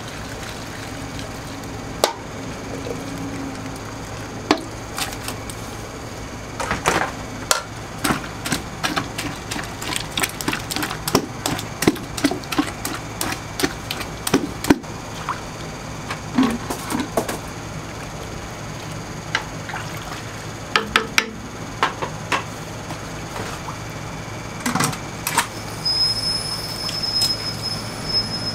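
Restaurant kitchen at work: a steady low hum under rapid runs of clattering and knocking from cookware and utensils. A high steady tone lasts about two seconds near the end.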